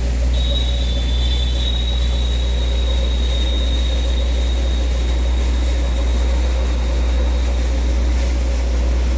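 Tubewell boring rig running steadily with a deep hum while water gushes from the borehole. A thin, high whine comes in just after the start and fades away about seven seconds in.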